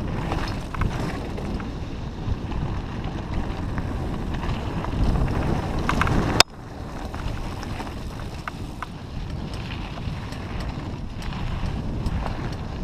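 Wind buffeting the mountain biker's GoPro microphone over the rumble of tyres on a rocky dirt singletrack, with scattered small clicks and rattles from the bike. A single sharp click a little past halfway, where the sound suddenly drops and then builds again.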